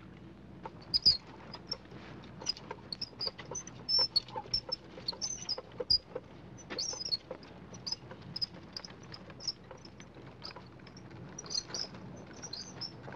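Child's tricycle squeaking and rattling as it is pedaled, with irregular high squeaks several times a second mixed with small clicks.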